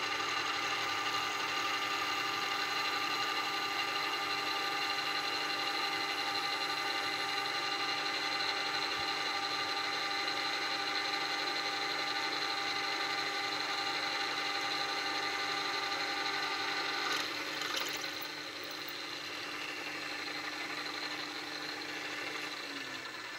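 Milling machine spindle running a twist drill through a small metal block, drilling a tapping-size hole for a grub screw: a steady motor whine with several tones. About seventeen seconds in the sound changes and drops a little, and near the end the pitch falls as the spindle slows.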